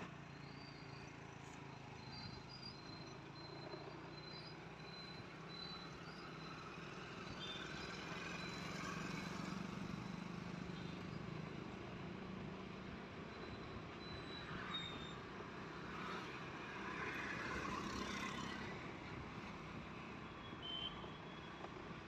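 Motorcycle engine running at a steady cruise while riding, with road and wind noise.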